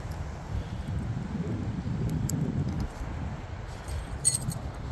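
Gusty wind buffeting the microphone, a steady low rumble, with a brief metallic clatter about four seconds in.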